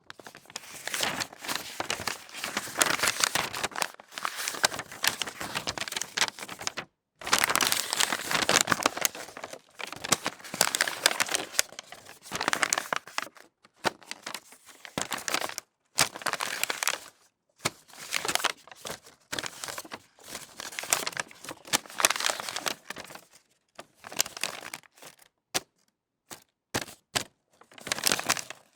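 Sheets of A4 office paper being crumpled and rustled, in long bouts of dense crinkling broken by short pauses. Near the end there are only scattered short crackles.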